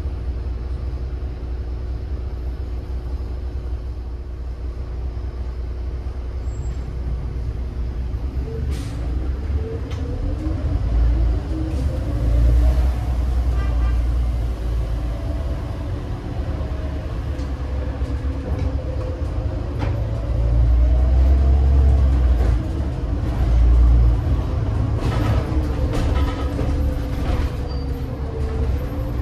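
Heuliez GX 137 city bus with its Iveco Tector 7 six-cylinder diesel holding a steady note, then pulling away about nine seconds in. The engine and driveline pitch rises and then levels off as it accelerates, with heavy low rumbling and a few sharp clicks.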